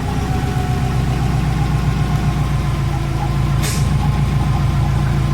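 The 2004 Subaru WRX's turbocharged flat-four engine runs at a steady, even pitch. A brief hiss comes about two-thirds of the way through.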